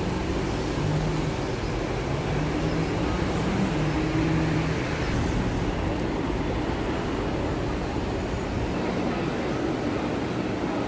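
Steady road traffic noise, with a low engine hum in the first half.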